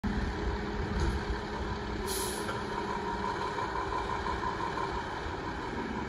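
Fire truck's diesel engine running as the rig creeps forward, with a short burst of air hissing about two seconds in.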